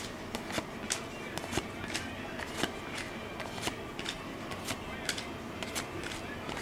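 Football trading cards being handled and flipped through by hand: irregular light clicks and snaps, one or two a second, over a steady background hiss.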